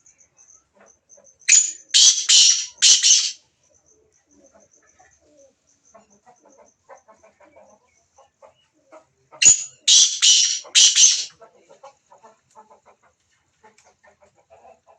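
A bird calling in two loud bouts, each of about four harsh, high notes in quick succession, roughly eight seconds apart, with faint chirps and clucks in between.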